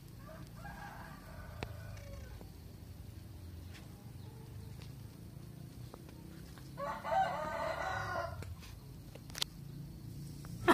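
A rooster crowing twice: a fainter crow at the start, then a louder one about seven seconds in, each lasting about two seconds.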